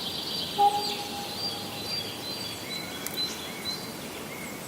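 Forest songbirds chirping and singing together in a spring dawn-chorus ambience, many short high chirps and trills overlapping. A lower held whistle sounds about half a second in.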